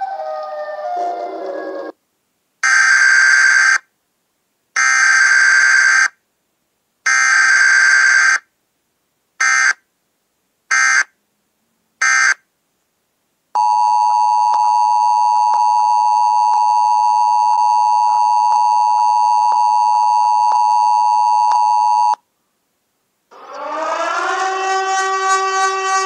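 A run of siren and alarm sound effects: a siren tone falling in pitch, three long blasts and three short ones with dead silence between, then a steady multi-note tone held for about eight seconds, and a siren winding up near the end.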